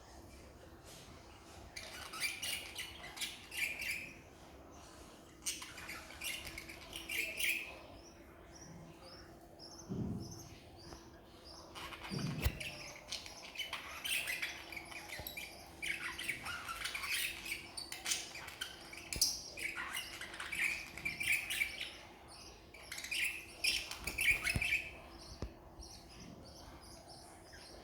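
Pet birds chirping and squawking in short, irregular bursts throughout, over a faint steady hum.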